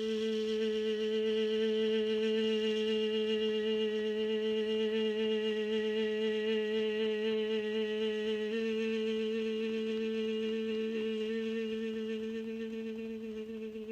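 One long note held at a steady, fairly low pitch, rich in overtones. It starts sharply, changes tone slightly about eight and a half seconds in, and fades slowly near the end.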